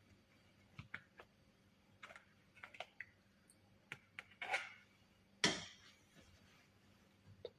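Light clicks and taps of kitchenware being handled, with two louder knocks about four and a half and five and a half seconds in, the second the loudest with a short ringing tail.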